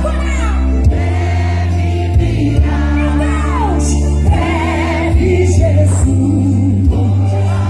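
Live gospel music: a band with heavy bass and drum hits under sung, wavering voices, with a choir-like sound.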